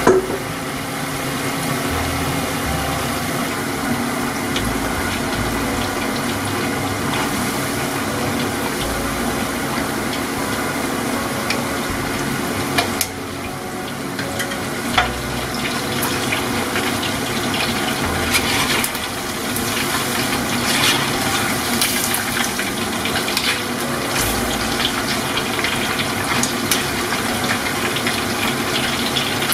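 Chicken thigh pieces coated in potato starch deep-frying in hot oil, a steady sizzle with crackling pops that grow busier in the second half.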